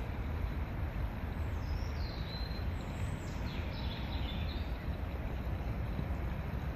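Wind buffeting the microphone with a steady low rumble. A small songbird sings a short phrase of high, gliding and falling notes from about a second and a half in to nearly five seconds in.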